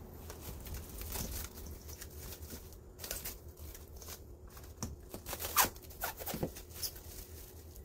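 Plastic cling wrap crinkling and crackling as it is pulled off the roll, stretched over a stainless-steel mixing bowl and pressed around the rim, in irregular sharp rustles. The loudest crackle comes about five and a half seconds in.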